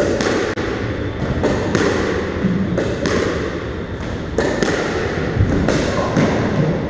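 A squash rally: the ball cracking off rackets and the court walls in a quick, irregular run of sharp hits, each one echoing in the hard-walled court.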